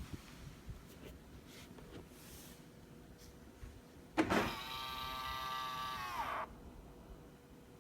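2017 Ford Kuga's power-folding side mirror motor starts with a click about halfway through, runs with a steady whine for about two seconds, then winds down in pitch as the mirror reaches its stop.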